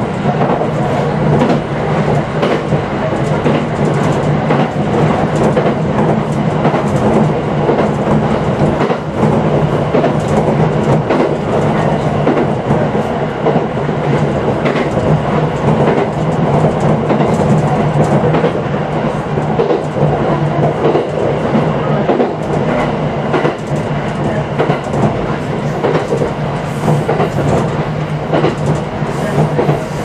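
701 series electric train running along the line, heard from inside its rear cab: a steady running hum with wheels clicking irregularly over the rail joints.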